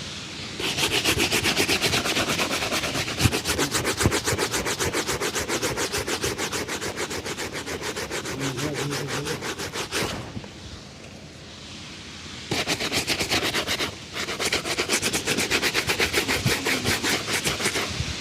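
A shoe being brushed to a shine with rapid back-and-forth strokes of a shoe-shine brush. The brushing pauses about ten seconds in and picks up again a couple of seconds later.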